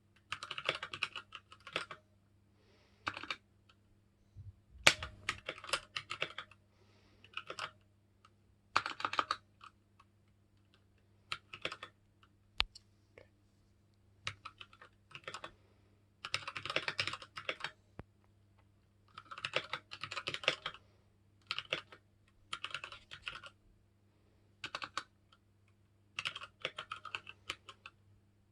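Keychron K6 mechanical keyboard with brown switches being typed on in short runs of keystrokes with brief pauses between them.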